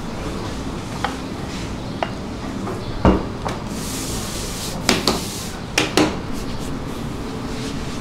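Wooden rolling pin and utensils knocking and clacking on a dough work table: a few light clicks, one loud knock about three seconds in, a brief soft hiss, then several clacks a couple of seconds later, over a steady hum.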